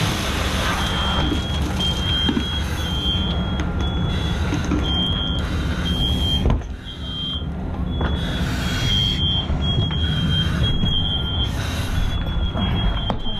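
A high electronic alarm beeps in short, irregular chirps over a steady, loud rushing noise at an interior fire attack.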